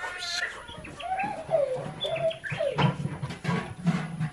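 Farm animals calling: a string of short calls rising and falling in pitch, some high and some low.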